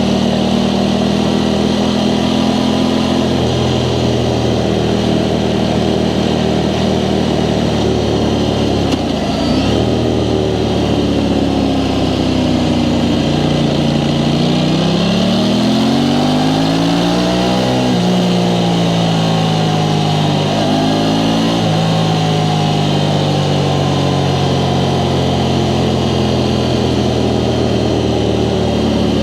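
Aprilia Tuono 660 Factory's parallel-twin engine through its stock exhaust, under way. The revs hold steady for most of the time, with one climb past the middle that rises over a few seconds and then eases back down in steps.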